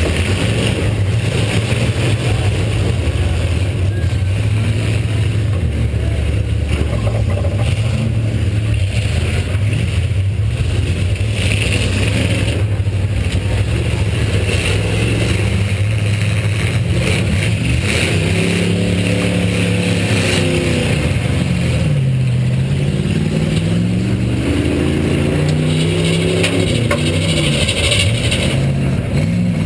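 A demolition-derby car's V8 engine running loud and close, heard from on board. In the second half it revs up and down several times in a row.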